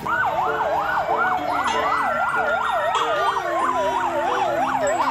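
Fire engine sirens: a rapid yelp sweeping up and down about four times a second, overlapped by a slower wail that falls and rises again near the end.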